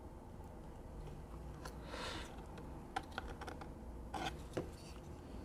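Faint scattered clicks and a brief scrape of small plastic and circuit-board parts being handled, as the opened automotive diagnostic interface is turned over and examined.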